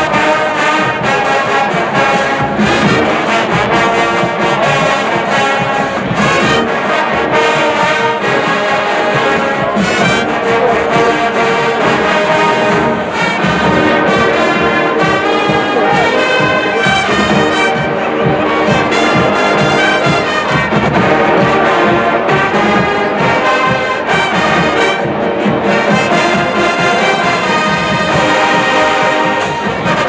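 College marching band playing loudly: a brass section of trumpets and sousaphones carrying the tune over a drumline of snare drums, bass drums and cymbals.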